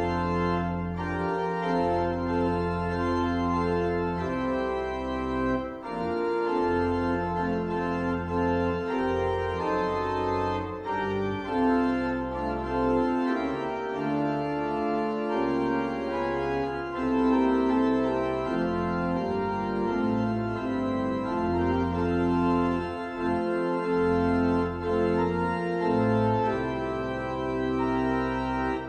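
Organ playing a hymn: sustained chords over a held low bass, changing every second or two.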